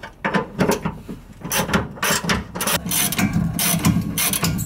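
Hand ratchet clicking as it works loose the 18 mm bolt of a rear panhard bar, in several runs of quick clicks.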